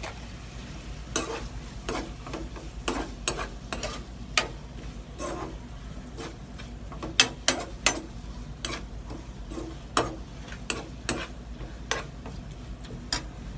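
A metal spoon stirring clam meat in a non-stick frying pan, clinking and scraping against the pan in irregular strokes, with a low sizzle of frying underneath.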